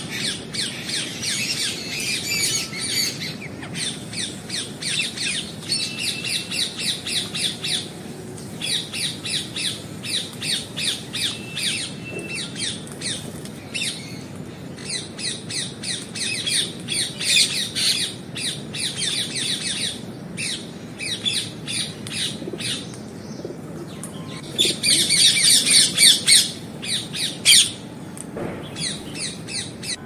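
Parakeets calling in rapid runs of sharp, high squawks, several a second, with short pauses between runs. A louder burst comes near the end.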